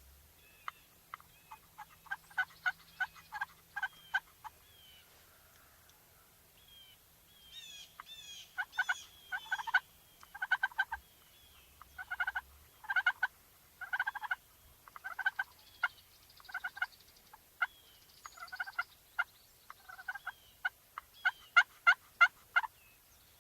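Wild turkeys gobbling over and over, in short rattling bursts that come in quick runs, the loudest near the end.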